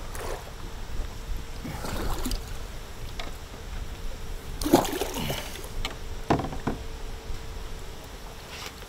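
Water sloshing against a small skiff's stern as a hooked fish splashes at the surface, with a few sharper splashes about two, five and six and a half seconds in. A steady low rumble of wind on the microphone runs underneath.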